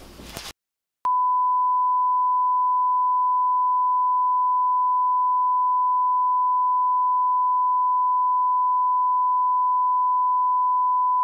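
Steady 1 kHz reference test tone, the continuous beep played with broadcast colour bars. It starts about a second in after a brief silence.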